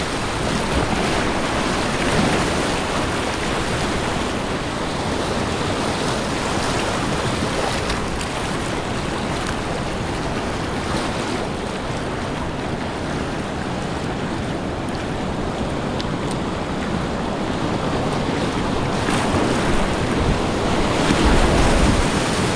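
Whitewater rapids rushing and splashing around a kayak, heard close up from the boat. The rush grows a little louder near the end as the kayak runs into a stretch of breaking waves.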